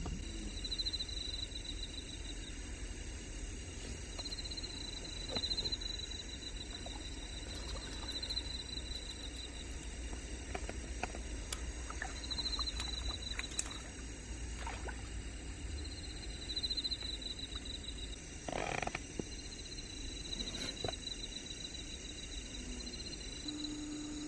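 Waterside outdoor ambience: a small animal's high, pulsing trill repeats every couple of seconds, each about a second long, over a steady low rumble. Faint scattered clicks run through it, and there is one brief noisy swish about three quarters of the way in.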